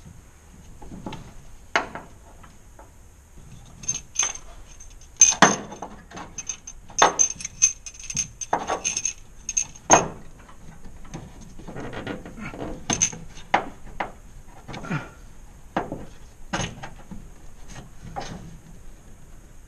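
Irregular metallic clinks and knocks of hand tools and metal fittings being handled, about a dozen sharp strikes at uneven intervals, the loudest about five, seven and ten seconds in.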